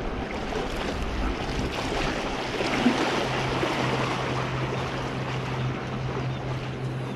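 Wind and sea noise with a steady low hum, like a boat engine, setting in about three seconds in.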